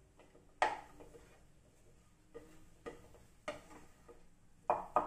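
A metal spoon knocking against a metal cooking pan about six times while mashed potato bhaji is stirred, the first knock the loudest, each one ringing briefly.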